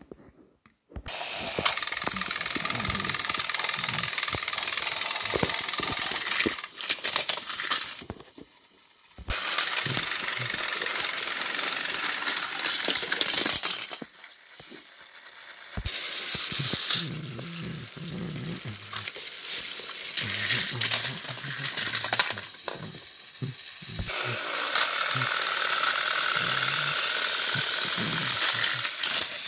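Battery-powered Thomas & Friends toy train engines running on plastic track, a steady whirring rattle of small electric motors and gears. It starts about a second in and cuts out briefly three times.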